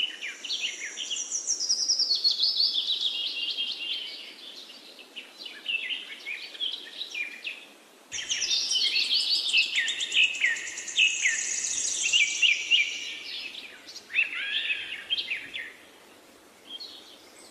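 Songbirds singing, several birds' chirps and quick trills overlapping. The song thins out before midway, comes back abruptly, and fades again near the end.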